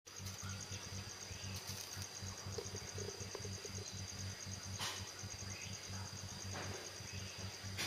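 Insects chirring steadily: a high, rapidly pulsing trill, over a low hum that throbs about twice a second.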